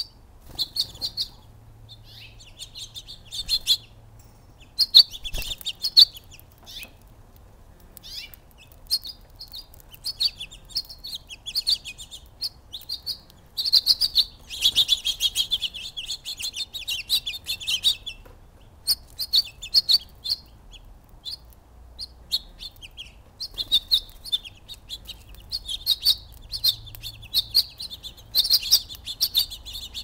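Sparrows and house finches chirping repeatedly, with runs of rapid chatter about halfway through and again near the end.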